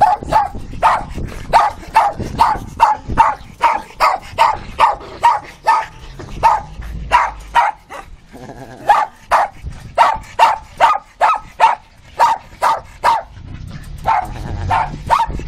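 Small dogs barking repeatedly in short, sharp, high barks, about one or two a second, with a couple of brief pauses.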